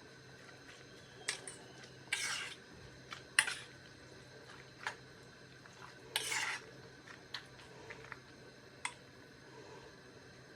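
Dishes and cutlery being handled: scattered light clinks and a couple of short scrapes.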